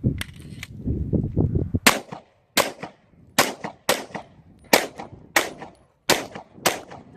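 Eight pistol shots fired in quick succession, about half a second to a second apart, each with a short echo. A low rumbling noise comes before the first shot.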